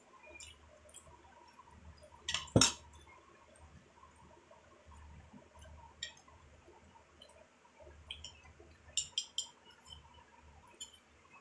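Metal spoon clinking against a glass bowl while scooping cabbage and carrots. There are a few scattered light clinks, one loud double clink about two and a half seconds in, and a quick cluster of clinks near nine seconds.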